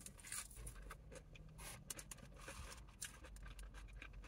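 Faint chewing of crisp battered fried fish: irregular small crunches and mouth clicks, over a low steady hum.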